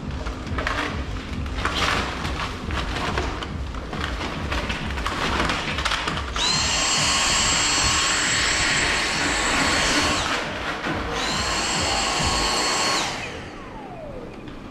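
Cordless stick vacuum cleaner switched on about six seconds in and running with a high steady whine, stopped for about a second, run again, then switched off near the end, its motor winding down with a falling whine. Scattered knocks and rustling come before it.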